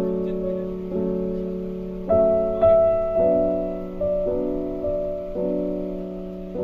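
Background piano music: slow chords, a new one struck about every second and left to ring.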